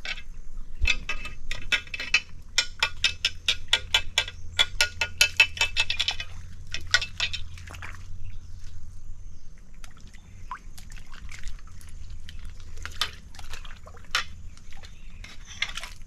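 Muddy water in a shallow pool splashing and dripping as a thin rod prods and stirs in a mud crab's hole. There is a dense run of quick small splashes and clicks for the first six seconds, then only scattered ones.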